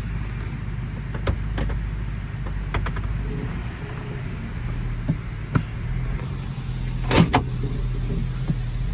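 A vehicle's engine running steadily at low revs, heard from inside the cab. Sharp clicks and knocks come now and then over the hum, the loudest about seven seconds in.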